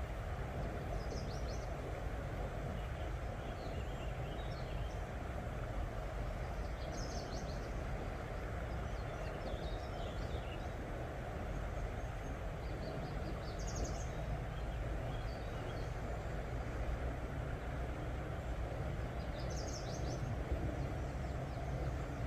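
Faint bird chirps, short high calls coming every few seconds, over a steady low rushing background noise.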